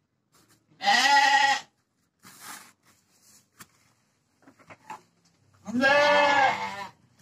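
Penned livestock bleating twice: a call of under a second, then a longer one about five seconds later.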